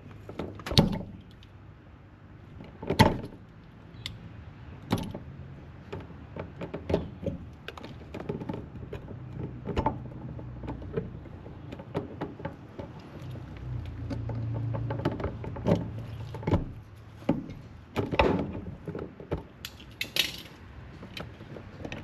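Irregular clicks, taps and light rattles of wires and metal parts of a 240-volt outlet being handled and pushed into place, the two loudest knocks about one and three seconds in. A low hum swells for a few seconds around the middle.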